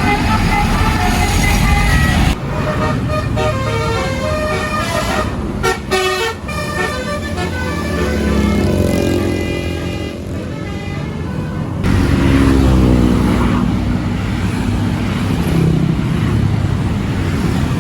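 Tour bus telolet horn playing a basuri tune, a run of short notes stepping up and down in pitch, over the rumble of bus engines and traffic.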